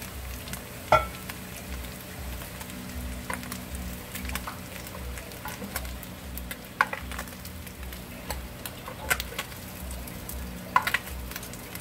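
Tilapia pieces sizzling and crackling in hot oil in a skillet, with a few sharp clicks of metal tongs against the pan as the pieces are lifted out.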